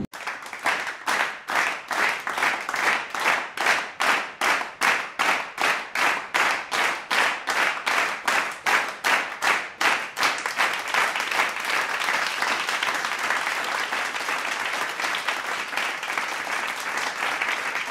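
Crowd clapping in unison, about three claps a second, that breaks about ten seconds in into continuous applause.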